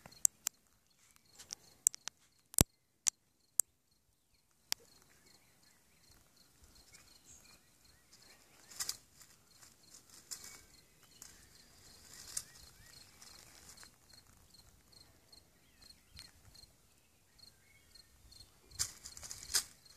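Dry leaf litter rustling in short bursts as a cat moves through it, the loudest near the end, with a few sharp clicks in the first five seconds. An insect chirps steadily a few times a second underneath.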